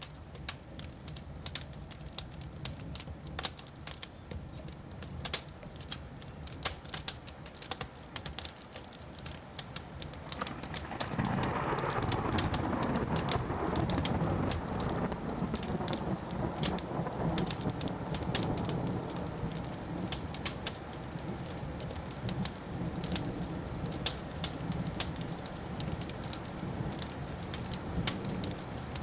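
Wood fire crackling with many sharp pops and snaps throughout. About a third of the way in, a long rumble of thunder swells, holds for a few seconds, then slowly dies away under the crackling.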